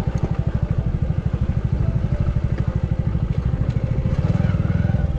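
Hero Splendor motorcycle's single-cylinder four-stroke engine running at low revs with a steady, even exhaust beat, picking up slightly about four seconds in.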